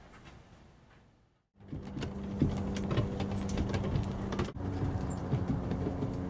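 After a quiet first second and a half, a wheeled dolly carrying a pallet-based shelter rolls over grass: a steady rumble with many rattling clicks from the wheels and load.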